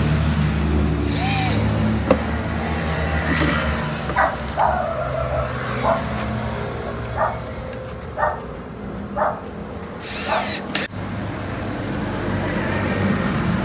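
A steady engine hum that fades over the first few seconds, then a dog barking about five times, roughly a second apart.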